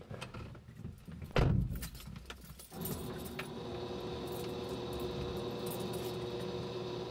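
Car keys jangling and clicking, with one heavy thud about a second and a half in. From about three seconds in comes a steady hum with faint whining tones as the car's ignition is switched on, just before the engine is started.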